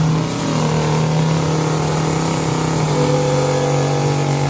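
Chainsaw engine running at a steady speed, its pitch held constant.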